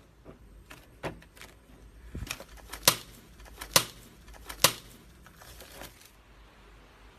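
Slime being worked, giving a series of sharp clicking pops and crackles. The three loudest pops come a little under a second apart near the middle.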